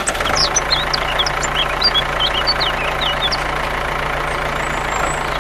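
A motor running steadily with a low, even hum. Short high chirps, like birds, sound over it for the first three seconds or so.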